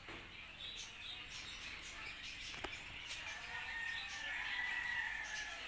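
Birds chirping, with a long rooster crow that rises and falls through the second half, and a single sharp click about halfway.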